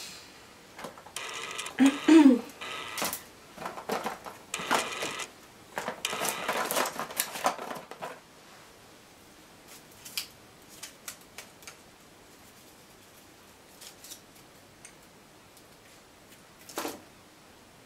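Craft supplies handled on a tabletop: a few seconds of rustling, scraping and clatter, then a few scattered light clicks and one tap near the end.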